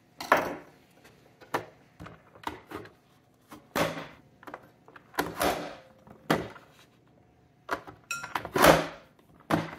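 Plastic hand-press vegetable dicer chopping cucumber: the hinged lid is pressed down repeatedly, forcing the pieces through the blade grid, giving a string of sharp plastic clacks and thunks with short pauses between them.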